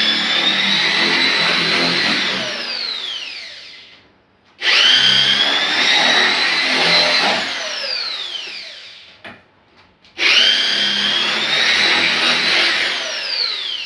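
Small corded handheld power tool worked against cement board in three short runs: each time the motor starts abruptly with a high whine, runs for two or three seconds, then is released and spins down with a falling whine.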